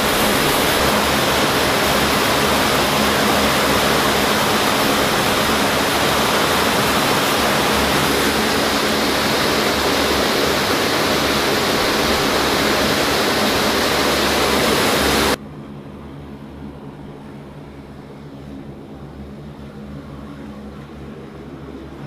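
Turboprop engines of a C-130-type transport running loud and steady at close range, an even rush of noise over a steady low propeller hum. About fifteen seconds in it drops abruptly to a much quieter, more distant engine hum.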